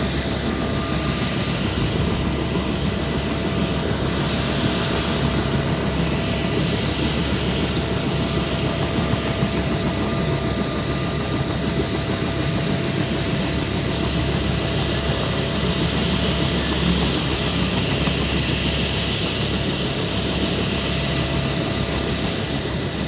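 UH-1 Huey helicopter's two-bladed main rotor and turbine engine running steadily, with a thin steady whine over the rotor noise.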